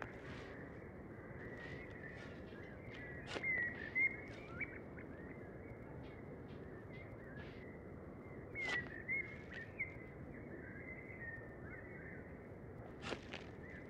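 Small birds chirping over a steady background hiss, with four sharp scrapes of a shovel blade cutting into loose soil.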